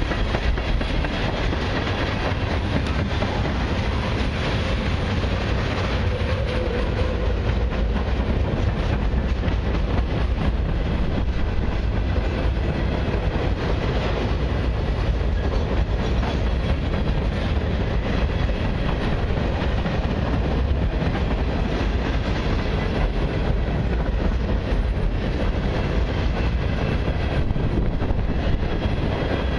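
Freight train cars, tank cars and then empty centerbeam flatcars, rolling past on steel wheels: a steady, unbroken rumble, heaviest in the low end.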